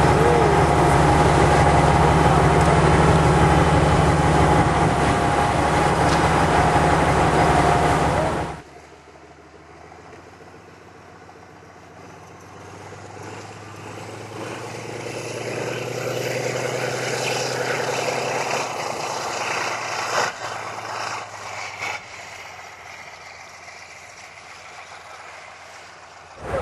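Narrow-gauge diesel locomotive engine running with a steady low drone. After a sudden cut, a quieter train sound swells and fades away as it passes, with a single sharp click partway through.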